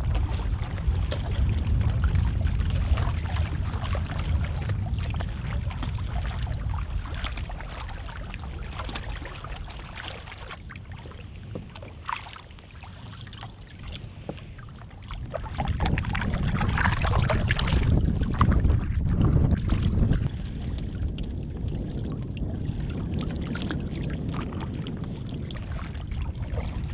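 Paddle strokes and water lapping against a Bergans Ally folding canoe being paddled across a lake, over a steady low rumble of wind on the microphone.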